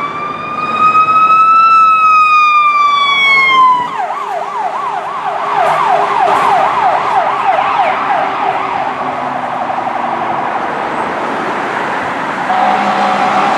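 Ambulance electronic siren in wail: one long tone rising, then slowly falling. About four seconds in it switches to a fast yelp of about three warbles a second, which fades as the ambulance pulls away. A steady tone comes in near the end.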